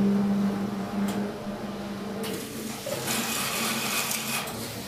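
Huijin ZK-400BL banknote strapping machine running its automatic strapping cycle, binding a stack of note packets with plastic band. A steady motor hum with a couple of clicks is joined about two seconds in by a hissing, whirring noise that grows louder a second later.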